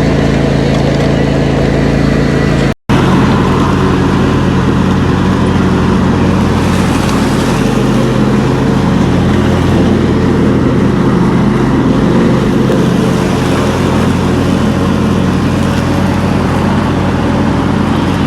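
Small gasoline engine of lawn equipment running steadily at high speed, close by, with one brief break about three seconds in.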